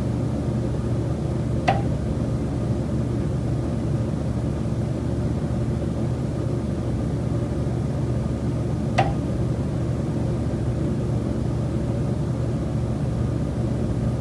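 Two sharp knocks from the building structure, about seven seconds apart, over a steady low hum. The knocking is a recurring noise that the tenant traces to the building's common elements.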